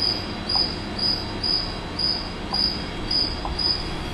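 A cricket chirping, a short high-pitched chirp about twice a second, over low background noise.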